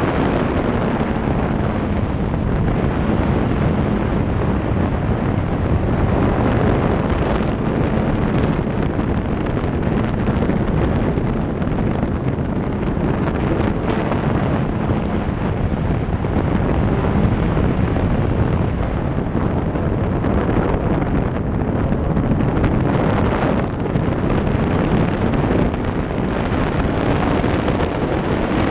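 Loud wind rushing and buffeting across the microphone of a sport motorcycle at road speed, with the steady note of the Yamaha R1's inline-four engine underneath.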